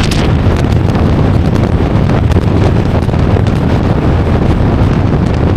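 Strong wind buffeting the camera microphone: a loud, steady rumbling rush.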